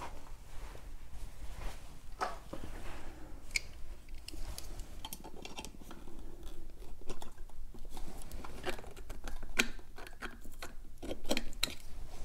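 Small metal parts clicking and tapping as a CNC aluminium pedal is fitted to an electric unicycle's pedal hanger with washers, a pivot rod and a screwdriver. The light clicks come irregularly, more often in the second half.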